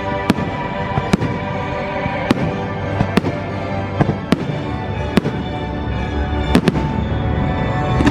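Aerial fireworks bursting in sharp bangs, roughly one a second and unevenly spaced, over the show's music playing on loudspeakers.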